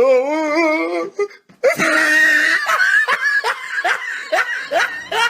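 People laughing loudly: a drawn-out laugh, a brief pause, then a run of short, quick bursts of laughter.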